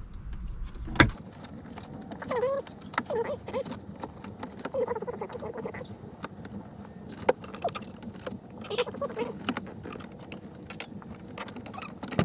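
Plastic dashboard trim of a 2014 Chevy Traverse being pried loose with a plastic pry tool: a sharp snap of a trim clip about a second in, then scattered clicks, rattles and creaks of the plastic panel.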